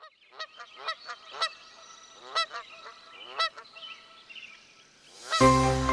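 Geese honking, a string of separate calls over the first three and a half seconds. Loud background music starts near the end.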